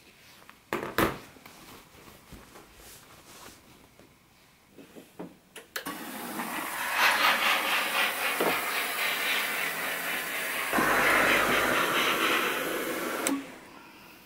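Steam iron pressing fabric and releasing steam: a loud, steady hiss that starts about six seconds in, lasts about seven seconds and cuts off suddenly. Before it, soft handling clicks and a sharp knock about a second in.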